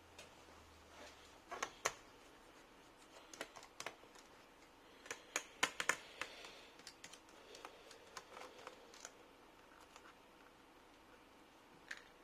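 Scattered sharp clicks and light scraping as a screwdriver and small screws work on a laptop's plastic back panel while it is being unscrewed. The clicks come in clusters, busiest in the first half, with a last one near the end.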